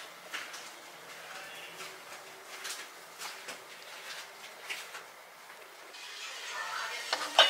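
Scattered light clicks and crackles. About six seconds in, kitchen handling sounds at a wooden cutting board rise, with a sharp knock just before the end.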